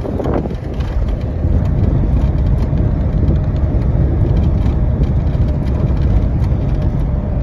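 Steady low rumble of a vehicle driving on a rough road, heard from inside, with wind noise on the microphone.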